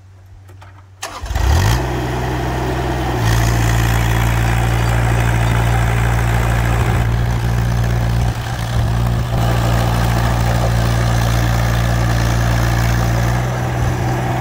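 A mini excavator's Kubota D902 three-cylinder diesel engine revs up sharply about a second in, then runs steadily at high throttle. It steps louder about three seconds in as the machine travels on its two-speed travel motors in high speed.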